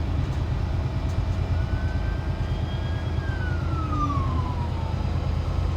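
Semi truck's diesel engine idling with a steady low rumble in the cab, with a police car's siren faintly heard over it as it passes: one wailing tone that holds, then falls in pitch about three seconds in.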